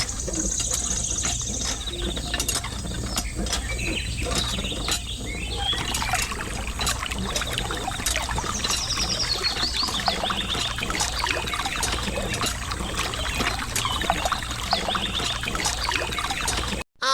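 Birds chirping and trilling over a steady low hum, with many small scattered clicks.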